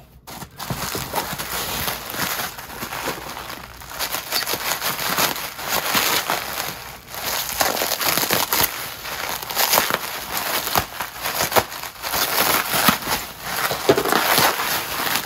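Plastic bubble wrap crinkling and crackling continuously as it is handled, slit open with a knife and pulled apart to free a package.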